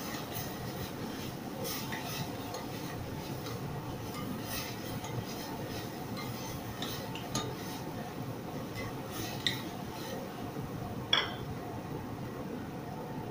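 Long-handled metal spoon stirring a frying onion-tomato masala in a pot on a gas stove, clinking and scraping against the pot at irregular moments over a steady frying sizzle. The loudest clink comes about eleven seconds in.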